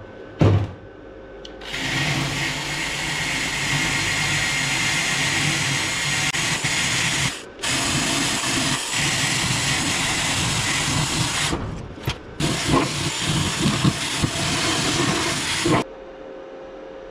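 Welding arc crackling and buzzing on the thin, rusty steel of a fuel tank while holes are plugged with weld. It runs in two long stretches, then a few short stuttering bursts, and each run cuts off sharply.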